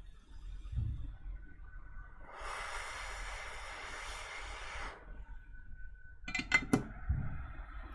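Hot air rework station blowing a burst of hot air for about two and a half seconds, with a faint whine before and after it; a few sharp clicks of small tools or parts follow near the end.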